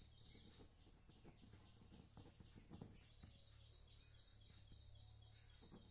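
Near silence: faint scratching and tapping of a pen writing on paper, under fast, repeated faint chirping in the background and a low steady hum.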